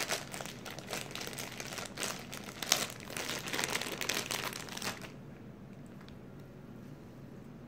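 Plastic marshmallow bag crinkling as a hand rummages in it, with a sharp crackle a little under three seconds in; the crinkling stops about five seconds in.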